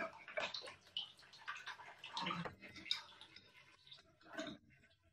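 Residual water running and dripping from a wall pipe fitting as an old angle valve is worked loose with an adjustable wrench, with scattered clicks of the metal wrench on the fitting. The flow thins out near the end.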